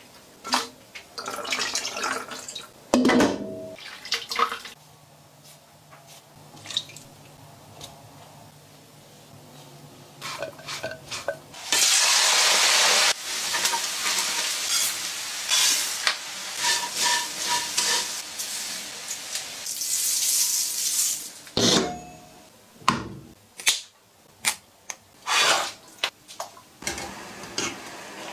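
Home kitchen cooking sounds in quick succession: water sloshing and a pot clattering, then shredded chicken sizzling loudly in a wok as it is stir-fried with chopsticks, then a string of sharp clacks of utensils against cookware.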